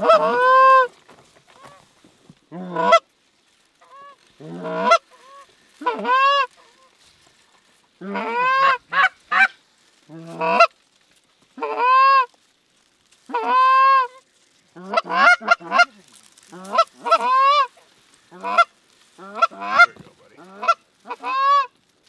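Canada goose honks and clucks: an irregular string of about twenty loud calls, each breaking sharply in pitch, with quick runs of several calls in a row around the middle and near the end.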